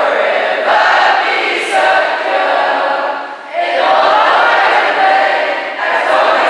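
A large group of school students singing the school song together in unison, with a short pause for breath between phrases about halfway through.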